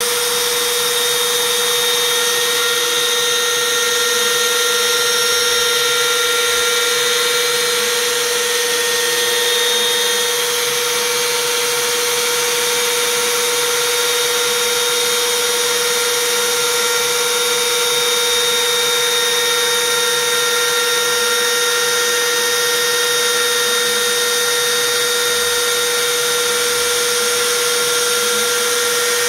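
Trim router spindle of a Shapeoko 3 XXL CNC machine running with a steady whine while its small end mill cuts outlines in plywood.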